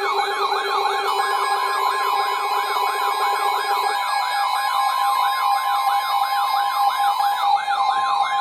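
Electronic emergency alert sounds: a siren-like tone sweeping up and down about three times a second, over steady high alert tones. A lower pulsing tone cuts off about four seconds in.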